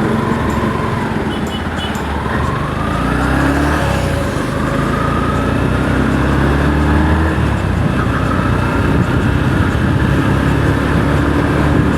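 Motorcycle engine running under way with steady road and wind noise, its note rising a few times in the first few seconds as it gathers speed.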